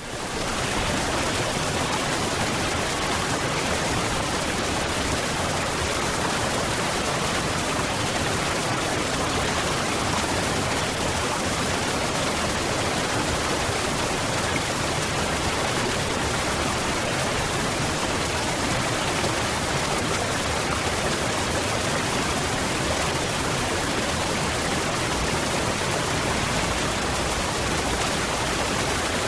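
Waterfall: a steady rush of falling water that fades in at the start and then holds even.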